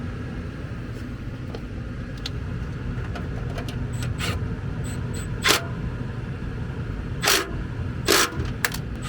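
ICP gas furnace running with a steady low rumble. From about four seconds in comes a series of short, sharp knocks and clicks, about seven of them.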